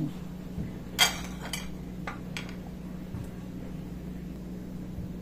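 Serving tongs and a slotted spoon clinking against a glass bowl and being set down on a plate: one sharp clink about a second in, then a few lighter taps, over a steady low hum.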